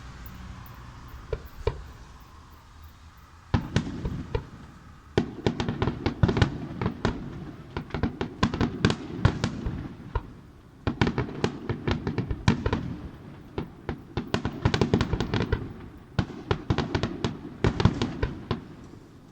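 Fireworks going off in rapid volleys of sharp bangs and crackles. They start about three and a half seconds in and keep going with a couple of brief lulls.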